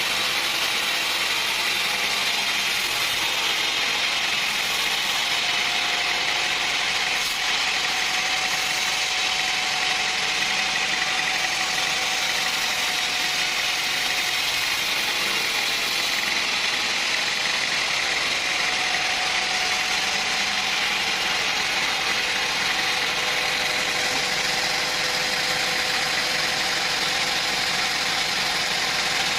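Sawmill machinery running steadily: an even mechanical noise with a faint held tone under it and no breaks.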